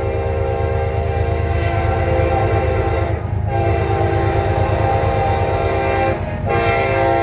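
CSX diesel locomotive's air horn sounding several notes at once in long blasts, broken briefly twice, about three and six seconds in: the warning for a grade crossing. A low locomotive rumble runs underneath.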